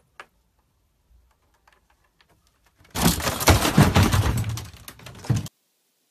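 A loud burst of rapid clattering and cracking, starting about three seconds in, lasting about two and a half seconds and cutting off suddenly.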